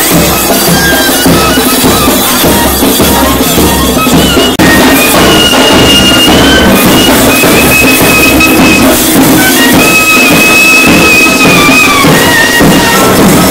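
Procession music: drums beating steadily, joined after an abrupt change about four and a half seconds in by a reed pipe playing long held, sliding notes.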